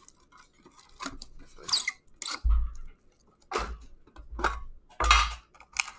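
Cardboard hockey card box and its packaging being handled and opened: rustling and scraping, with a few dull knocks.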